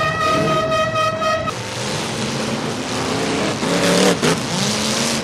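A car horn blaring on one steady note, cutting off about a second and a half in, followed by car engines revving.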